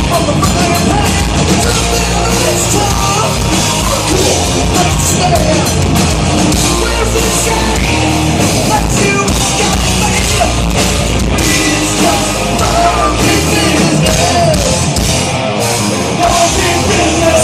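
Rock band playing a hard rock song at full volume, dense and steady throughout.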